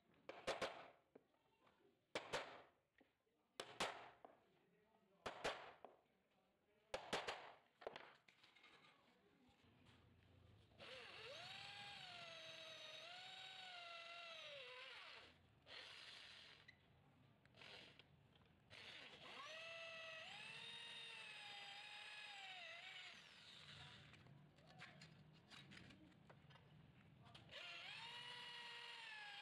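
Electric hand drill boring holes through a thin steel plate, its motor whine dipping and recovering as the bit bites, in three runs starting about 11, 19 and 27 seconds in. Before the drilling, five short sharp sounds about a second and a half apart as the plate is marked out with a pointed steel tool.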